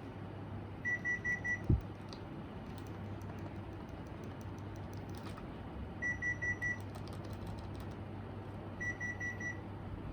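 Electronic beeper of a Panasonic Envio split air conditioner sounding three times, each time a quick run of four high beeps, over a steady low hum. A single short thump follows just after the first run.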